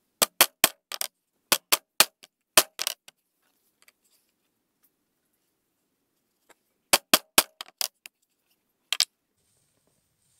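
Small hammer tapping a homemade hollow punch made from an M8 screw, punching holes in leather: sharp metal-on-metal taps in two quick runs, about a dozen strikes, a pause of a few seconds, then about half a dozen more and one last tap.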